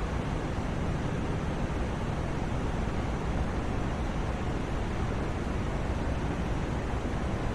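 Steady white noise for sleep: an even, unchanging hiss, fuller in the lows and mids and softer in the treble.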